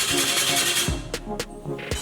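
Background music with a steady beat, which cuts off about halfway through and is followed by a few sharp clicks.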